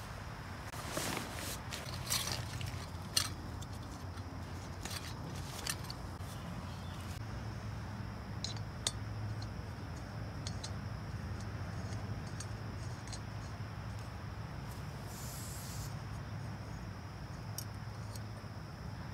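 Handling of a backpacking stove kit: a stuff sack rustled and a canister stove screwed onto a gas canister, with small clicks and knocks, most of them in the first several seconds. There is a short hiss about fifteen seconds in, and a steady low hum throughout.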